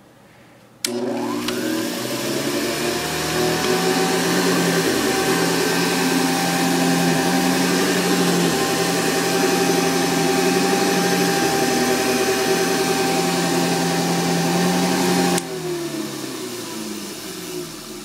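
Hoover 913 upright vacuum cleaner switched on about a second in. Its motor whine rises in pitch as it spins up, then runs steadily with its four-row nylon brush roll on carpet. A few seconds before the end it is switched off and winds down with a falling whine.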